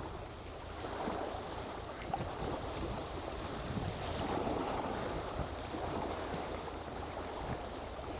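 Wind noise on the microphone over a steady wash of sea surf.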